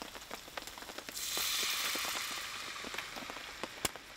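Sake poured into a hot iron frying pan with a venison steak and mushrooms hits the metal and sizzles loudly about a second in, fading over the next two seconds as the sauce begins. Raindrops tick sharply throughout.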